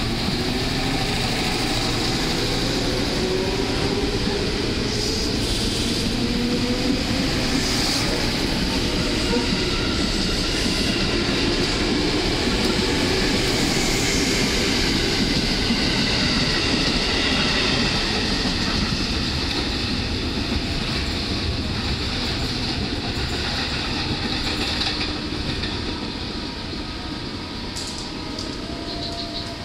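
KRL Commuter Line electric multiple-unit train pulling out of the station and running past close by. Its motors whine upward in pitch as it gathers speed, over a steady rumble of wheels on rail. The sound eases off near the end as the last car goes by.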